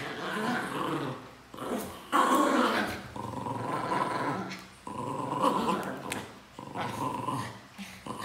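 Pinscher dogs growling in repeated bouts of a second or two, with short breaks between, as they play tug-of-war over a stuffed toy.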